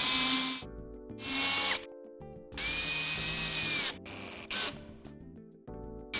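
Cordless drill driving a screw through a steel hinge mounting plate into particleboard in three short runs of the motor and a brief blip, each whine falling in pitch as the trigger is let go. Background music underneath.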